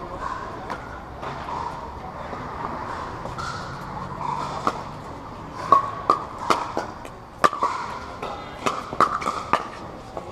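Pickleball paddles striking a hard plastic Dura 40 outdoor ball in a rally: sharp pops spaced a second or so apart, coming in a quick run of four or five near the end.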